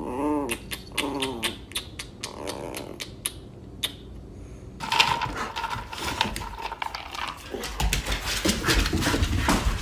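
Small puppy growling in short whiny grumbles that rise and fall in pitch, three or four times in the first half, with a few clicks. About halfway in the sound changes to a rough, noisy stretch with low thuds.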